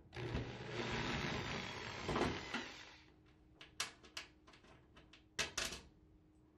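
Cordless drill-driver running for about three seconds, backing a screw out of a washing machine's door latch, then a few light clicks and knocks as the loose screw and the plastic latch are handled.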